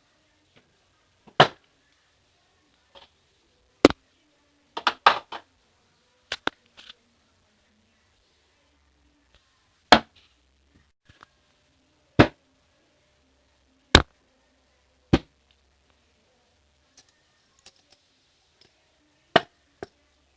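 Small objects being picked up and set down: a series of sharp knocks and clacks at irregular intervals a few seconds apart, with a quick run of several about five seconds in.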